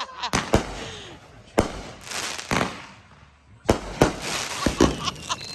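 Consumer fireworks going off in a string of sharp bangs, about eight over five seconds, with a crackling hiss after some of them.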